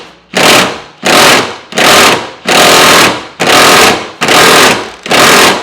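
Impact wrench hammering in seven short bursts on a bolt that won't break loose, with brief pauses between the pulls of the trigger.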